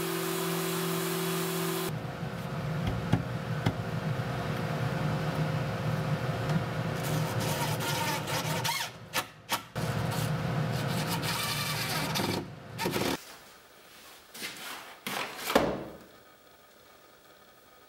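A random orbital sander on a dust-extraction hose runs against wood and stops after about two seconds. A cordless drill then whirs steadily in two long runs with a short break about nine seconds in. After that a plastic bag rustles with a sharp click as a router bit is unwrapped.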